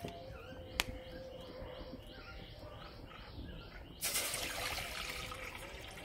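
Water poured in a thick stream into an empty stainless-steel cooking pot, starting suddenly about four seconds in and splashing loudly. Before it, birds chirp over and over outdoors, and there is a single sharp click about a second in.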